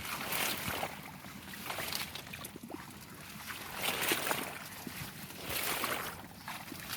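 Water splashing and sloshing in repeated swells about every two seconds, with a few small knocks.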